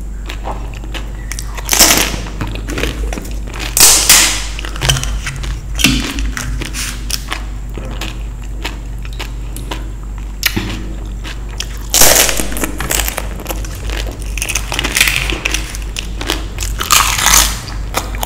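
Close-up eating sounds: loud crunchy bites, about seven spread through, with chewing in between, over a steady low hum.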